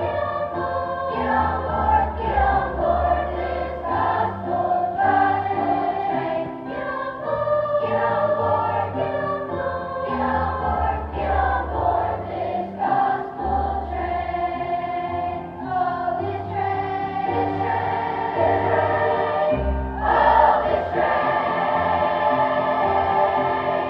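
Children's choir singing an upbeat song over instrumental accompaniment with a steady bass line, then holding a long loud chord for the last few seconds.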